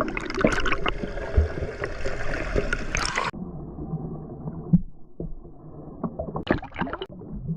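Water splashing and sloshing right at the microphone. About three seconds in, the sound suddenly turns dull and muffled as the camera goes underwater, leaving gurgling bubbles and pops.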